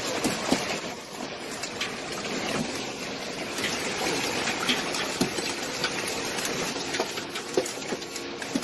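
Hailstorm: a dense, steady hiss of falling hail, dotted with sharp clicks as hailstones strike hard surfaces.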